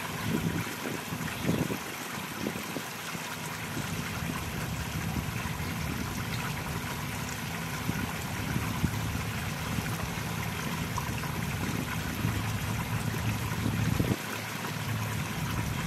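Water splashing and trickling steadily into a pond from a small inflow, with a few low rumbles near the start and shortly before the end.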